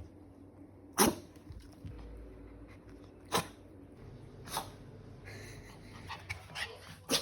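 A Pomeranian sneezing several times in short, sharp bursts, the loudest about a second in.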